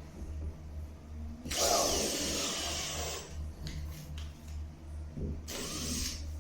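Two bursts of scraping or rasping against the drywall surface: the first comes about a second and a half in and lasts nearly two seconds, the second is shorter and comes near the end. A steady, evenly pulsing low hum runs underneath.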